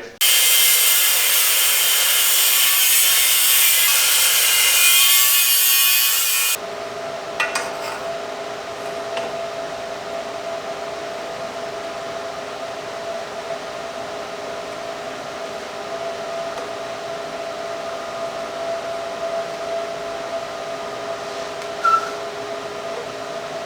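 A power tool cuts through a metal pipe with a loud, harsh hiss for about six seconds, then stops abruptly. A quieter steady two-tone hum follows.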